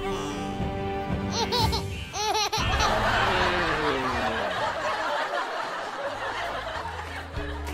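Laughter lasting several seconds, with a slowly falling tone under it, over background music. About a second and a half in, it is led in by two short wobbling cartoon-style tones.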